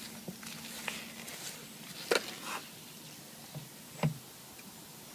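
Petrol being poured from a can into a small go-kart fuel tank: a faint trickle with light knocks and clicks of the can against the tank, two sharper knocks about two and four seconds in.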